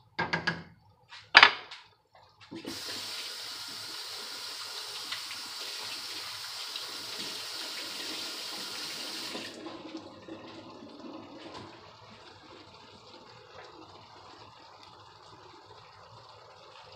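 A couple of sharp knocks, the second one loud, about a second and a half in. Then a kitchen faucet runs steadily for about seven seconds and shuts off abruptly, leaving a faint steady hiss.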